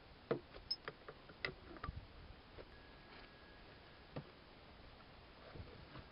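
Metal parts of a Wilton bench vise clicking and tapping against each other as they are handled during reassembly: a quick run of sharp clicks in the first two seconds, then a single knock about four seconds in.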